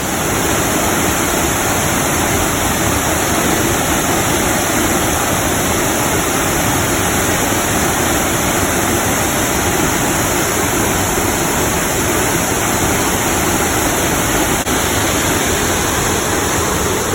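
Dry Falls waterfall pouring down in a loud, steady rush of falling water.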